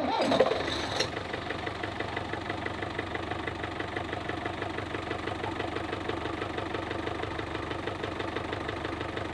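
The catamaran's port inboard engine catches in the first second and settles into a steady, even idle. This is its first successful run after the valve-cover gasket work, following repeated cranking that would not start it.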